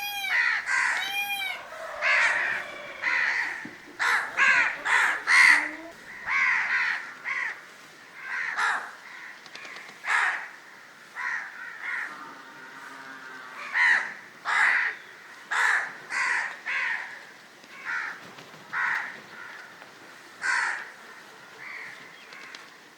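Crows cawing: a dense run of overlapping harsh caws over the first several seconds, then single caws spaced a second or two apart.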